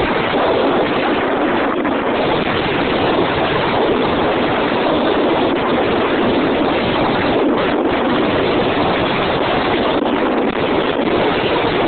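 Snowboard sliding fast over snow, a steady loud rush mixed with wind on the microphone as the rider carries speed downhill.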